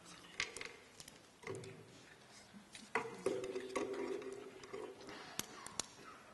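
Handling noise close to a podium microphone: scattered clicks and light knocks of a drinking glass and tissues being handled, with a low muffled sound for a couple of seconds in the middle.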